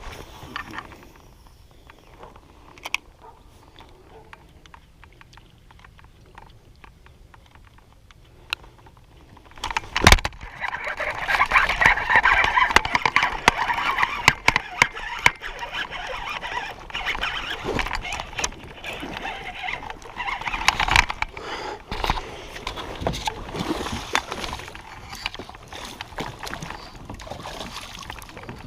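Water splashing and sloshing around a kayak as a big bass is fought to the boat: quiet small clicks at first, a sudden sharp knock about ten seconds in, then continuous splashing that eases off near the end.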